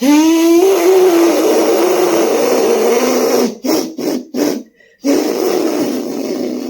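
Beatboxer's voice imitating a machine-like whirr: a gritty held buzzing tone that swoops up at the start and then holds. Three short bursts break it about halfway, and then the held tone resumes.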